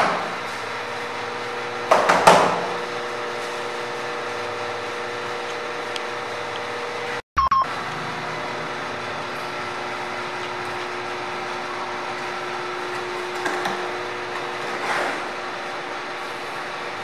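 Steady electric appliance hum with a few fixed tones, like a drink cooler or air conditioner running. A brief clatter comes about two seconds in, and two softer knocks come near the end, as a cardboard cake box is handled on a counter. The sound cuts out for a moment about seven seconds in, and the hum's tone shifts after it.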